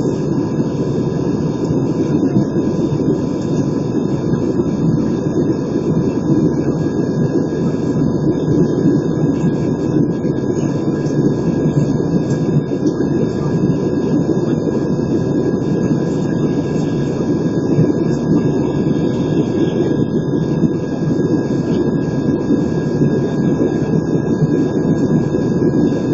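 Steady cabin roar of an Airbus A320 in flight, the jet engines and rushing air heard from a window seat over the wing, with a faint steady whine above the low roar.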